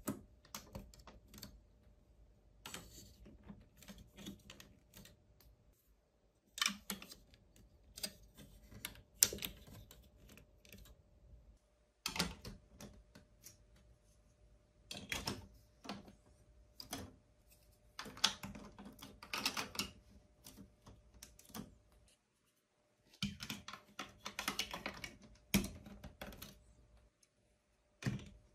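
Large plastic building blocks and marble-run track pieces clicking and clattering as they are handled and pressed into place, in scattered bursts of sharp clicks with quiet gaps between.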